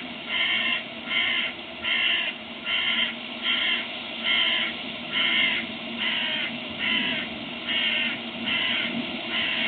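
A crow cawing in a long, even series of harsh calls, about three every two seconds.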